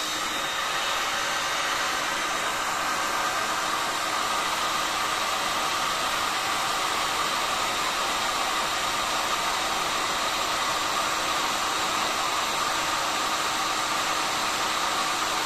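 Electric hot air gun blowing steadily at its 400-degree setting: an even, unchanging rushing hiss.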